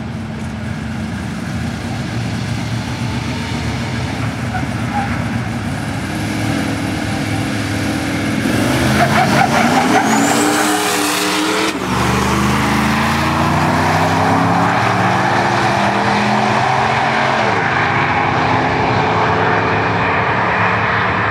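Ford F-150 SVT Raptor's V8 running at the start line, then launching at full throttle about halfway through, with tyres chattering and squealing as the rear wheels hop. The revs then climb and drop back at each upshift as it runs down the strip.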